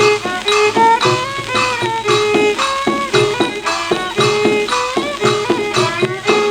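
Instrumental music from a khaen ensemble on an old 78 rpm shellac record of Isan mor lam mu. It plays a quick, even run of sharply struck notes, about three to four a second, some bending in pitch.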